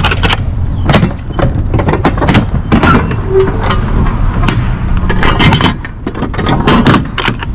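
Metal clanks and rattles of a dry van trailer's rear swing door being unlatched and swung open: the lock-rod handles and cam bars knock in several clusters over a steady low rumble.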